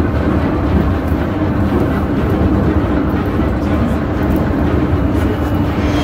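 Funicular car climbing its track, heard from inside the cabin: a steady rumble of wheels running on the rails, with a constant hum underneath.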